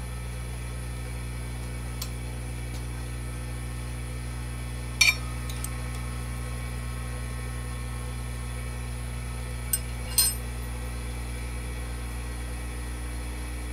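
A few sharp metallic clinks of a hand tool on the clamp screws of a shop-built indexing head as they are loosened: the loudest about five seconds in, two more close together near ten seconds. Under them, a steady electrical hum from the shop machinery.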